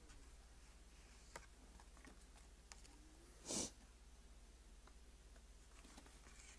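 Quiet hand handling of cardstock and twine: a few faint taps, and one short burst of rustling noise about halfway through.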